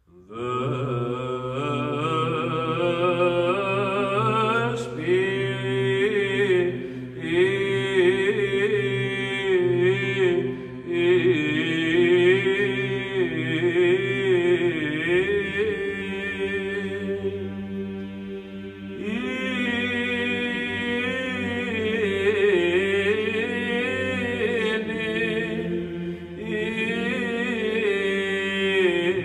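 Unaccompanied chanting as background music: a wavering sung melody over a held low drone note that shifts to a new pitch about halfway through.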